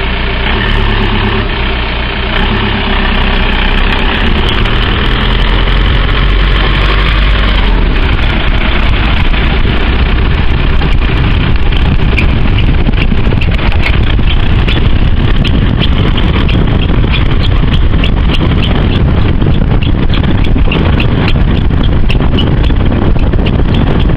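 VW Bora running, its engine hum giving way to steady road noise, with short high squeaks repeating irregularly from about halfway on. The squeak's cause is unknown and it is not from the tyres or brakes, both recently replaced.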